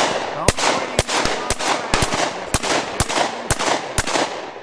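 Rapid, irregular volley of shotgun shots from several guns firing at driven pheasants flying overhead, about ten shots in quick succession, each with an echoing tail.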